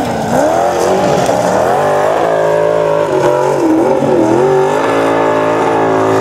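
A Formula Offroad buggy's engine is revving hard on a steep sand climb. Its pitch swings up and down again and again as the wheels spin in loose sand.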